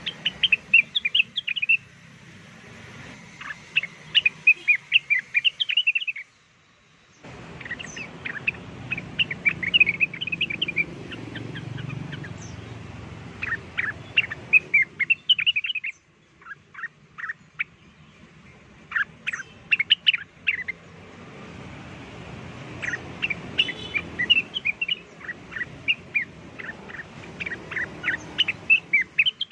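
Cucak wilis (leafbird) song played as a lure call: rapid phrases of sharp chirps and whistles, repeated in bursts. The recording drops out briefly about six seconds in and cuts abruptly again about sixteen seconds in.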